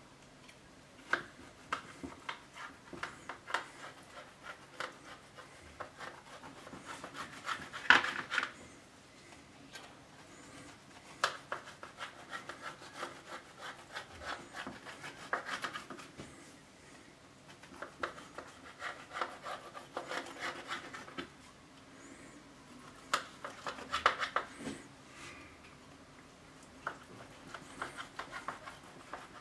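A long knife sawing through a baked slab of Nussecken with a crunchy nut topping on a baking tray. It makes a crackly scraping in repeated cutting strokes of a few seconds each, the loudest about eight seconds in.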